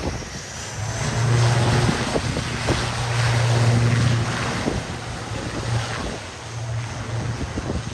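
ATR 72 turboprop's propellers giving a steady low drone as it rolls along the runway, louder between about one and four seconds in, with wind buffeting the microphone.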